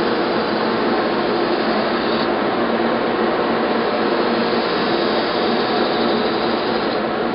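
Narrow-belt grinder running steadily while a folding knife's blade is held against the belt at the contact wheel, sharpening the edge. A thin high whine rides over the steady noise, dropping out about two seconds in and returning in the second half.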